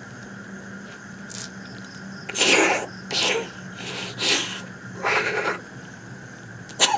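A man making a run of sudden, explosive breathy bursts through hands cupped over his nose and mouth, like stifled sneezes, about five in a row with the loudest about two and a half seconds in. A faint steady hum lies underneath.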